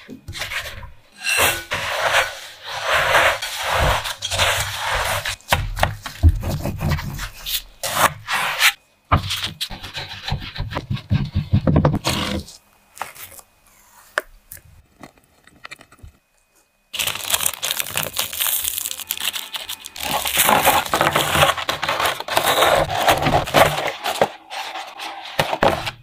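A spatula scraping and folding milk powder into a sticky, creamy mixture in a glass bowl, in quick rough strokes. After a quiet stretch near the middle, another long run of scraping and rubbing handling sounds follows.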